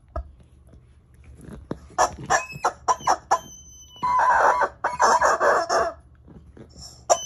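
Rubber fried-chicken dog toy squeaking as a miniature dachshund bites it. First comes a quick run of short, sharp squeaks about two seconds in, then two longer squeals between about four and six seconds, and one more sharp squeak near the end.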